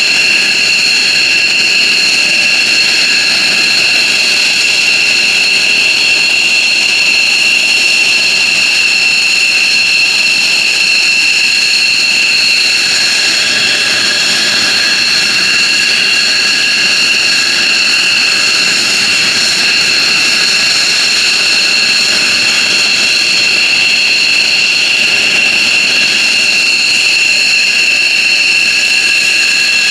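F-15J Eagle's Pratt & Whitney F100 turbofan jet engines running steadily, a loud rush of jet noise with several high whining tones held at constant pitch.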